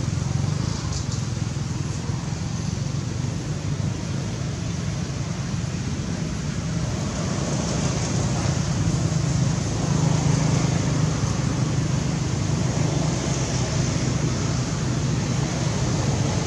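Steady outdoor background noise: a low rumble with an even hiss above it, no clear calls or knocks standing out.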